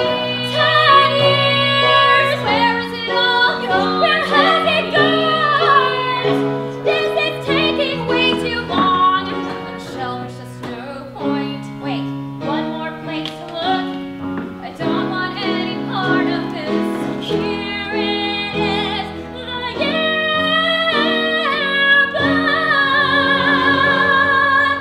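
Music with a woman singing a melody over instrumental accompaniment, with held notes.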